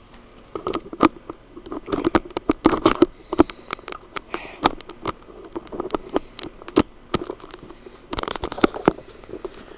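Handling noise as the camera is moved and set back in place: irregular clicks, knocks and rustles against the microphone, with a denser burst of rustling near the end.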